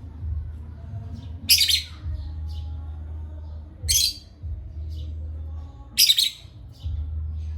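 Parrots squawking: three loud, harsh squawks about two seconds apart, with softer chirps between them, over a steady low hum.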